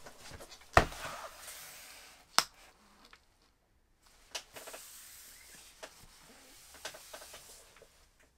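A cardboard box handled with gloved hands: two sharp taps in the first few seconds, then rubbing and scraping of the gloves on the cardboard with a few lighter knocks.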